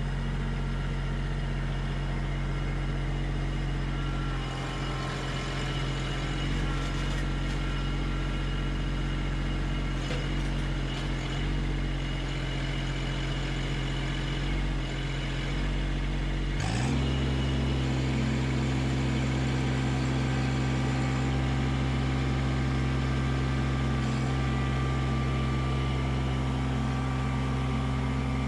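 Kubota LX2610 compact tractor's three-cylinder diesel engine running steadily while its loader works a root rake grapple onto a granite boulder. About two-thirds of the way through, the engine speed steps quickly up and holds higher as the grapple lifts the boulder.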